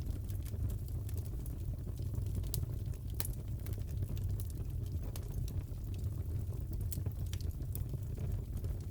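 Wood fire crackling in a fireplace: a steady low rumble of the flames with sharp crackles and pops scattered irregularly, the loudest about three seconds in.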